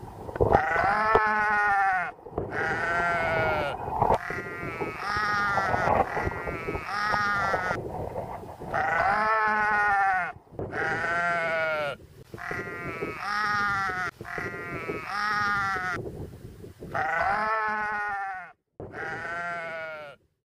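Sheep bleating over and over, with a wavering bleat about every second and some bleats overlapping. It breaks off abruptly twice near the end and then stops.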